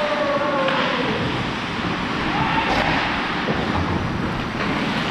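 Ice hockey play heard from the referee's GoPro as he skates: a steady rush of wind on the microphone and skate noise on the ice, with a couple of faint clacks about a third of the way in and near the end.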